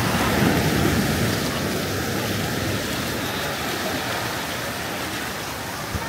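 Sea surf washing onto a sand beach: a steady rush of noise that swells about half a second in.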